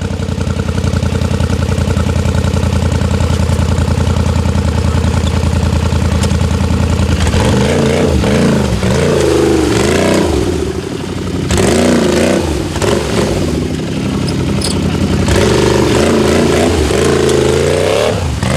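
ATV engine running hard at a steady high pitch for about seven seconds, then revving up and down repeatedly.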